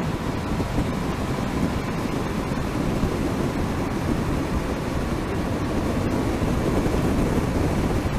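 Steady wind and tyre noise from a Mercedes-Benz GenH2 hydrogen fuel-cell electric truck driving at speed: a rushing noise heaviest in the low end, with a faint steady high tone underneath.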